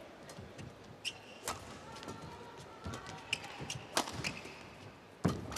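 Badminton rally: several sharp racket strikes on the shuttlecock, with short squeaks of court shoes on the mat between them. Near the end comes the loudest sound, a heavy thud.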